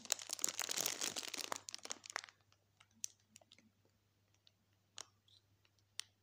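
Cosmetics and their packaging being handled: about two seconds of crinkling and rustling, then a few separate light clicks and taps.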